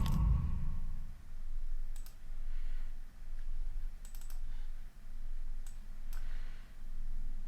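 A handful of sharp, scattered clicks from a computer mouse and keyboard being worked, over a faint low hum.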